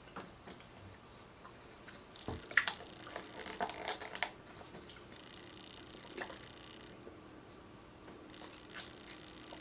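A person chewing food, with a few scattered soft clicks between stretches of quiet.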